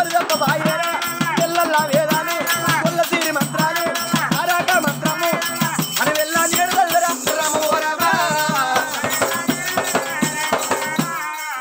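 Telangana Oggu Katha folk music: a fast, even jingling rattle beat under a wavering sung or played melody.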